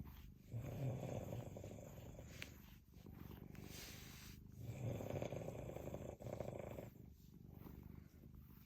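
A sleeping person snoring, two snores about four seconds apart, over a cat's steady purring as it is brushed.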